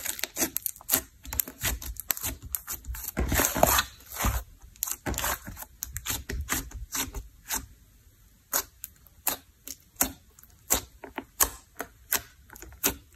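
Hands squishing, folding and poking a thick slime with makeup and clay mixed into it. A dense run of sticky crackles and pops comes first, then after about four seconds it thins out to single clicks and pops, spaced apart.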